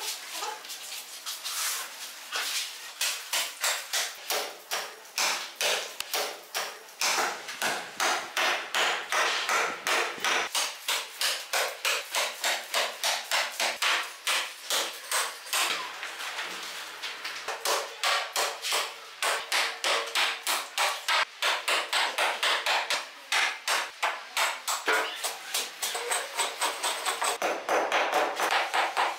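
Hatchet chopping again and again into a palm trunk, stripping off its fibrous bark. The strikes are quick and even, about two or three a second, with a few short pauses.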